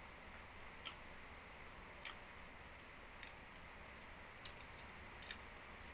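Small dogs eating pieces of roast chicken from a hand: a handful of faint, sharp clicks and smacks of teeth and mouths, over a steady low hiss.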